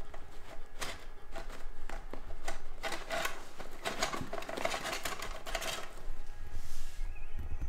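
Irregular scratching and rustling of a fabric pop-up cat tunnel as a kitten scrambles and rolls around inside it.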